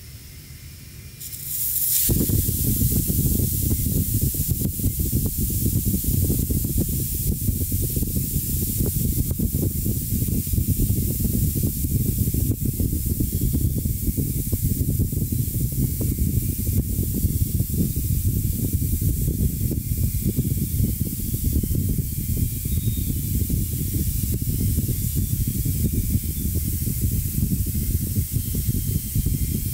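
Air rushing out of a small hole punched with an incense stick in an inflatable vinyl crocodile pool toy as it deflates. The hiss starts suddenly about two seconds in and then runs steady and loud, with a low fluttering rush under it.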